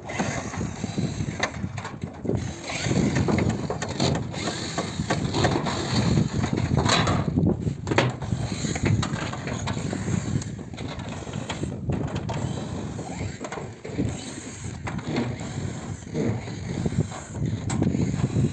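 Thin metal roof tiles rattling, knocking and scraping with irregular clicks and clanks as roofers work on them and take the roof apart.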